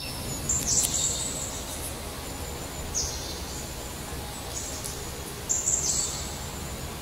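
A songbird singing short, high phrases that drop in pitch, repeated every one to two seconds, over steady low background noise.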